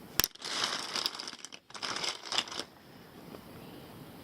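Plastic Bic lighters being handled and shuffled: a sharp click, then rustling and small clicks that stop about two and a half seconds in.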